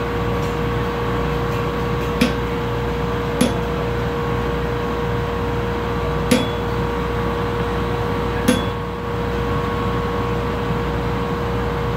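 Four separate hammer blows on steel at the anvil, each with a short metallic ring, spaced unevenly. They fall over a steady hum from the forge.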